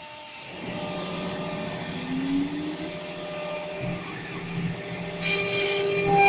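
CNC router's spindle motor running up to speed, a high whine rising in pitch and then holding steady over a mechanical hum. About five seconds in the sound turns suddenly louder and harsher.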